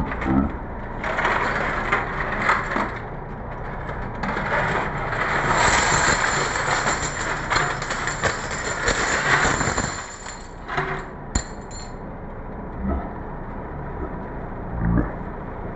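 Coins clinking and rattling together as a pile of saved money is handled, loudest in the middle stretch, with one sharp clink about two-thirds of the way through.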